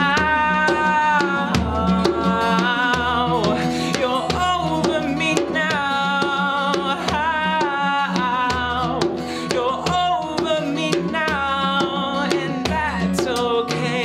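A band playing a song live, drums keeping a steady beat under a held, wavering melodic line.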